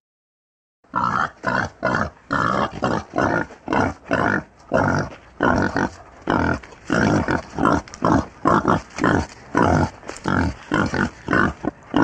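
Wild boar grunting: a long string of short grunts, about two or three a second, starting about a second in.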